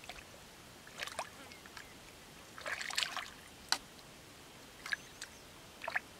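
Hands and feet working in shallow muddy water, giving a few short splashes and squelches. The busiest stretch is around three seconds in, followed by a sharp click.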